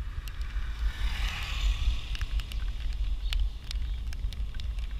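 Bicycle ride: wind rumbling on the microphone, with sharp clicks and rattles from the bike over a rough road. A rushing hiss swells briefly about a second in.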